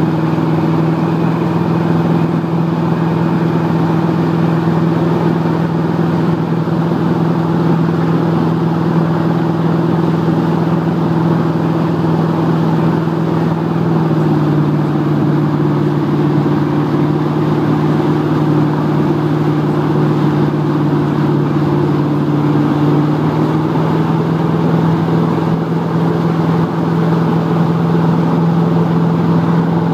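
Motorboat engine running at a steady towing speed, its pitch shifting slightly about halfway through, over the rush of the churning wake and wind.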